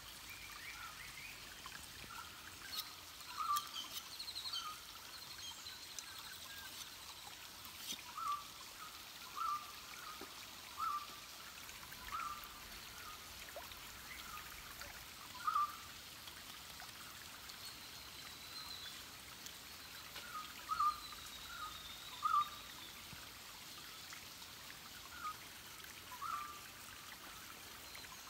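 A small stream trickling, with irregular water drops plinking into it, a little rising in pitch, somewhat less than once a second. A faint high bird call glides in the background.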